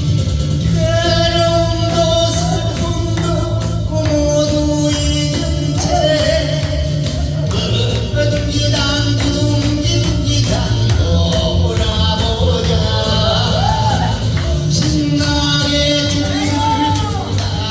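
Upbeat Korean trot song with a steady dance beat under a held, wavering melody line.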